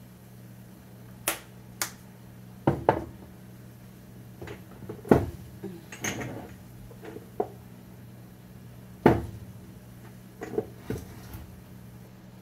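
Plastic spice shaker and bottles being handled: about a dozen scattered clicks and knocks, with a steady low hum underneath.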